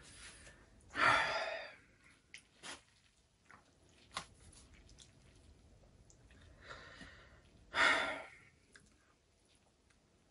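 A man's breath: two loud breathy exhales about seven seconds apart, with a few faint clicks of metal tongs between them.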